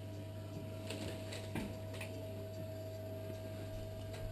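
Steady electrical hum with a thin steady whine over it, and a few soft clicks from a dental instrument being handled in the mouth.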